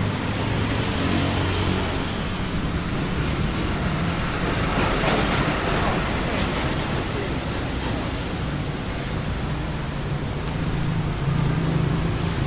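A fuel-injected engine idling steadily, its hum slightly stronger near the start and again near the end.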